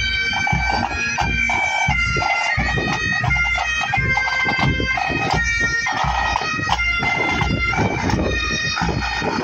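Pipe band marching past: Highland bagpipes playing a tune over their steady drone, with drums beating a regular marching beat about twice a second.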